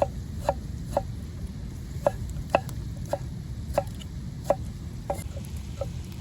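Sharp knocks of a kitchen utensil striking during food preparation, irregular at about two a second, each with a short pitched ring, over a steady low rumble of wind.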